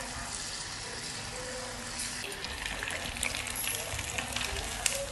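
Marinated paneer pieces deep-frying in hot oil in a kadai: a steady hiss of bubbling oil. From about two seconds in, crackling and the clicks and scrapes of a slotted metal spoon stirring the pieces are added.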